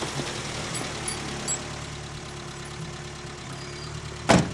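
Pickup truck engine idling steadily, with a single loud thump near the end as a door of the truck is shut.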